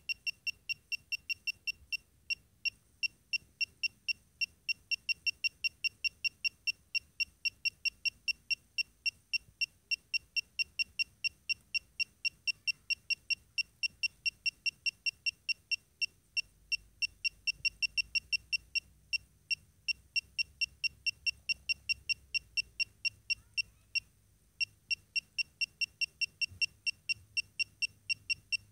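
Polimaster PM1704 radiation dosimeter beeping: short, high-pitched chirps at an irregular rate of about four a second, with one brief pause. Each chirp marks detected radiation, the device's audible count signal at a dose rate of about 0.35 µSv/h.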